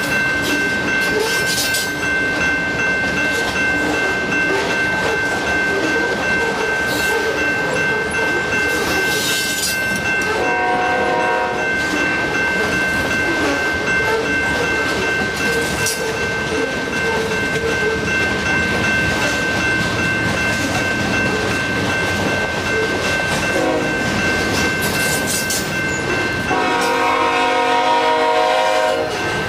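Canadian Pacific freight train of covered grain hoppers rolling past, with wheels clacking over the rails. An approaching CP GE ES44AC diesel locomotive sounds its air horn: a short blast about ten seconds in and a longer, louder one near the end as it reaches the crossing.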